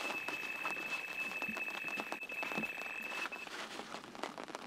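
Electronic carp bite alarm sounding one continuous high tone as a carp runs with the bait and takes line, cutting off after about three seconds. Rain patters throughout.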